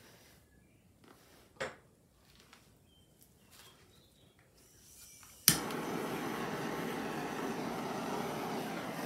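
Small handheld electric air blower switched on with a click about halfway through, then blowing a steady stream of air onto wet acrylic paint until it is switched off. A single light knock comes earlier.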